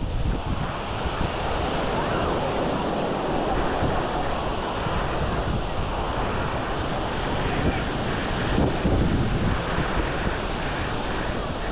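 Small waves washing steadily onto a sandy shore, mixed with wind buffeting the microphone in low, uneven rumbles.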